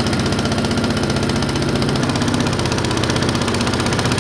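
Small jon boat's newly fitted motor running steadily under way, a rapid even firing pulse with a constant drone.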